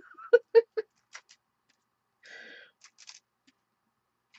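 Broom-bristle brush being flicked and tapped to spatter ink: three sharp clicks in quick succession, the loudest within the first second, then fainter ticks, a short hiss about two seconds in, and a few more clicks near the end.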